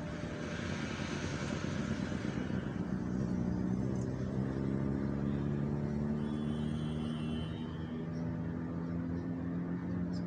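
Street traffic: a car passes in the first few seconds with a rush of tyre and air noise, then a steady engine hum carries on.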